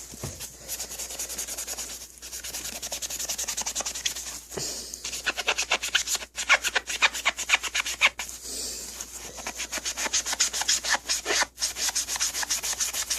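A damp magic eraser scrubbing scuffs off a shoe in rapid back-and-forth strokes, with a few brief pauses.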